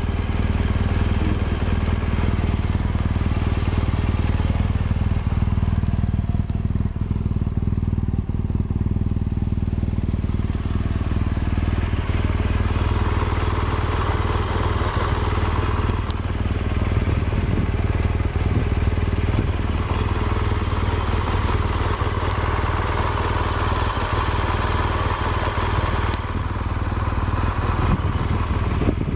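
A 2016 BMW R1200GS's liquid-cooled boxer twin idles steadily through its stock exhaust.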